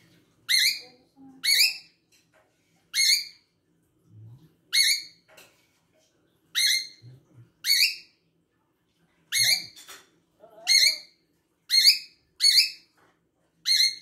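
Cockatiel giving about a dozen short, sharp, high-pitched calls, repeated at roughly one-second intervals.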